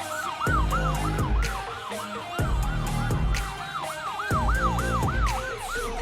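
Emergency vehicle's electronic siren on yelp, rapid rising-and-falling whoops about three a second, sounding over dance music with a heavy bass beat.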